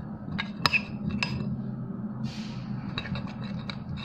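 A stirring utensil clinking against a bowl as thickened slime mixture is stirred: a few sharp clinks in the first second and a half, a short scrape a little after two seconds, then quicker light ticks near the end.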